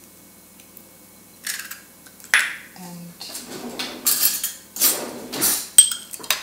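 Kitchen handling sounds at a mixing bowl: a sharp clink a little past two seconds in, then a run of rustling and clattering with another sharp click near the end, as utensils and ingredient containers are handled.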